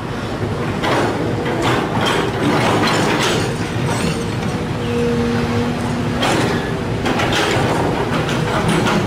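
Sumitomo SH210 hydraulic excavator digging soil: its diesel engine runs steadily under load while the steel bucket scrapes through dirt with repeated metallic clanks and squeals.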